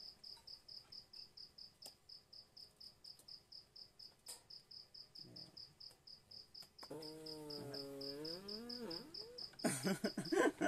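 A cricket chirping in a steady rhythm, about four chirps a second. From about seven seconds in a man's drawn-out voice joins, and near the end there is louder laughter.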